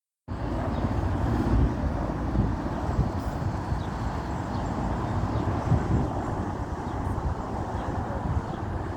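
Firefighting helicopter's rotor and engine noise as it hovers to take on water, mixed with gusty wind rumble on the microphone.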